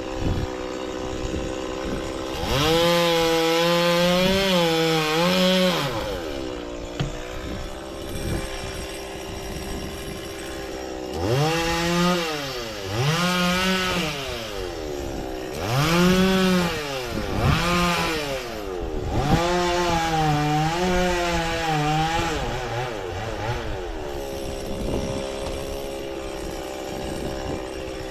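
Stihl two-stroke chainsaw idling, then opened up to full throttle for a few seconds, its engine pitch wavering as the chain bites into the frangipani trunk. It drops back to idle, then makes several shorter full-throttle bursts in the middle, and settles to a steady idle near the end.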